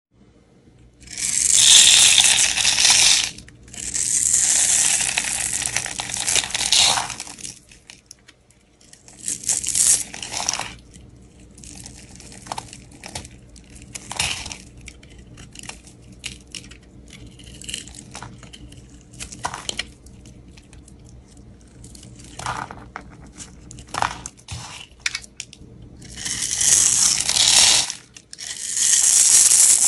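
A handheld knife blade cutting and shaving bars of dry soap, the soap crunching and crackling as chunks and small cubes break off. There are long loud stretches of crunching near the start and near the end, with sparser crackles and clicks in between, over a faint low hum.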